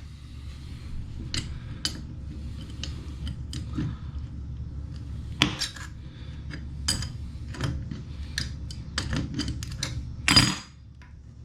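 Scattered light clicks and clinks of hands working a toilet's water-supply hose loose from the fill-valve connection under the tank, with one louder knock about ten seconds in.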